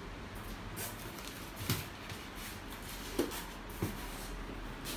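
Handling noise as a foam RC plane and its styrofoam packaging box are moved about: a few soft knocks and rustles over steady room hiss.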